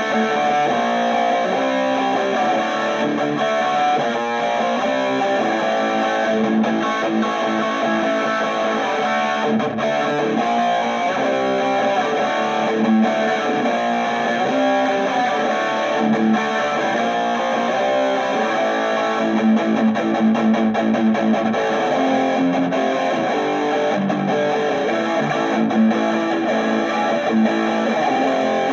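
Electric guitar (a gold Les Paul) played through an Orange Micro Terror hybrid amplifier, which has a single-valve preamp and a solid-state power stage. It gives an overdriven tone and plays chords and riffs without a break.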